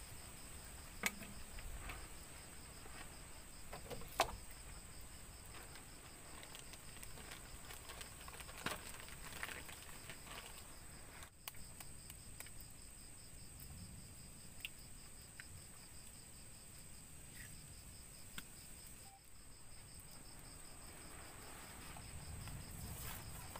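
Night insect chorus: a steady high whine with a fast, evenly pulsing trill beneath it. A few sharp knocks and taps break in, the loudest about one and four seconds in.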